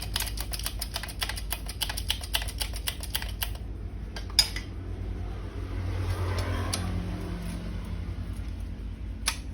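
A quick run of light, sharp clicks, about eight a second, for roughly three and a half seconds, then a few single clicks, the loudest about four and a half seconds in, over a steady low hum.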